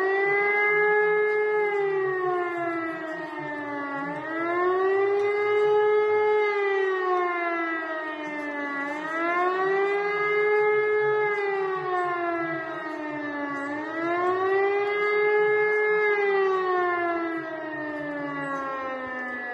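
Air-raid siren wailing, its pitch rising and falling in a slow, regular cycle about four times, then sliding steadily down near the end as it begins to wind down. The rising-and-falling howl is the warning signal sounded in a siren test.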